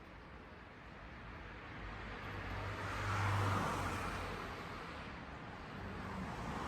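A road vehicle passing by: a rush of engine and tyre noise that swells to its loudest about three seconds in, then fades.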